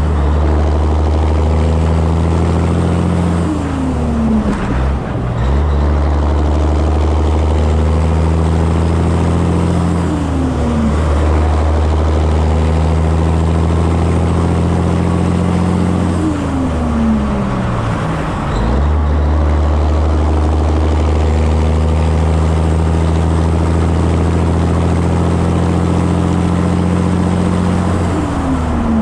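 Peterbilt 362 cabover semi's diesel engine pulling through the gears, heard from the trailer behind the cab. The engine note falls sharply at each of four upshifts, with steady pulling between them, over a rush of wind and road noise.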